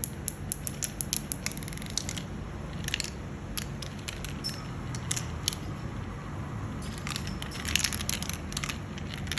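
Marbles clattering along a marble run: quick runs of sharp clicks in the first two seconds and again about seven to nine seconds in, with scattered single clicks between.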